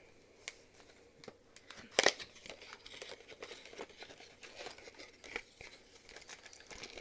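A product box being opened and its packaging handled: crinkling and rustling with scattered small clicks, and one sharp snap about two seconds in.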